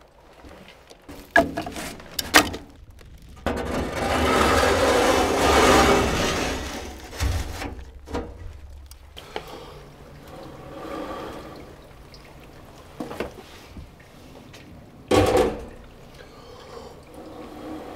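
Fire being lit in the hot tub's wood-fired stove: two sharp clicks, then a loud rushing noise for a few seconds as the newspaper and kindling flare up. Smaller knocks follow, and there is one loud knock near the end.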